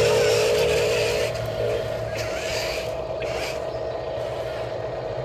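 Radio-controlled toy excavator working, its electric motors whirring as the boom and bucket move, over a steady whine and low hum; the loudest whir stops about a second in.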